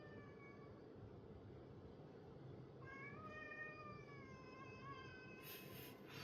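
Domestic cat meowing: the end of one meow at the start, then one long drawn-out meow lasting about two and a half seconds, followed near the end by a short breathy burst of noise.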